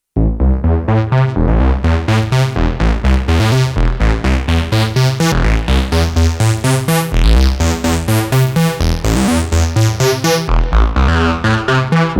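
IK Multimedia UNO Synth Pro analog synthesizer playing a fast sequenced pattern of short, bass-heavy notes, about six a second, starting abruptly. The sound turns brighter for a couple of seconds near the middle-to-end as the filter opens.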